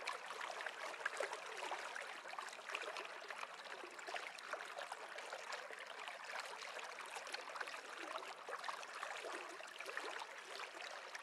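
Water running in a stream, a steady trickling and gurgling, growing a little quieter near the end.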